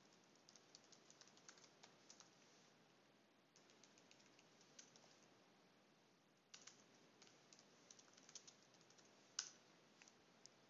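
Faint typing on a computer keyboard: runs of quick keystrokes with short pauses between them, and one sharper keystroke near the end.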